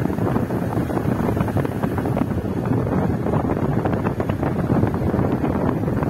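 Steady noise of a car on the move, with wind buffeting the microphone.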